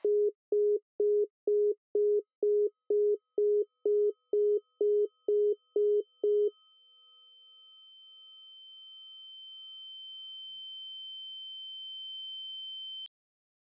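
Telephone busy tone: a low beep repeating about twice a second, stopping about six and a half seconds in. Then a single high, steady tone slowly grows louder and cuts off suddenly near the end.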